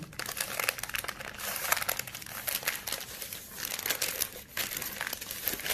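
Baking paper crinkling and rustling as it is pulled open and peeled back from a freshly baked cake, a continuous run of irregular crackles.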